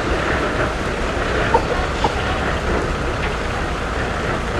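Mitsubishi Fuso truck's diesel engine running steadily with a low rumble, over a broad outdoor noise. Two short high chirps stand out near the middle.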